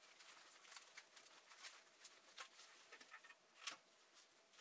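Faint, scattered rustling and light clicks of folded trekking poles and running-vest fabric and cords being handled, sped up in fast-forward, with one slightly louder click a little before the end.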